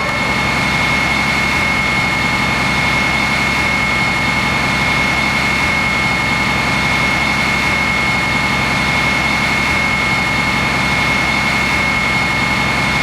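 A heavy engine idling steadily, with a constant high-pitched whine over it. It cuts in suddenly and then holds without change.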